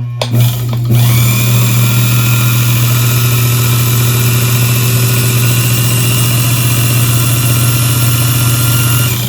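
Watchmaker's lathe driven by a sewing machine motor through a rubber band belt, running loud and steady with a low hum and a high whine. It stutters briefly before settling at speed about a second in, and winds down near the end.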